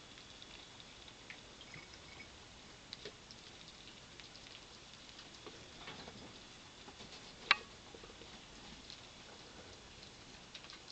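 Pet rats eating peas and fishing in a ceramic water bowl: faint, scattered small clicks and ticks, with one sharper, louder click a little past the middle.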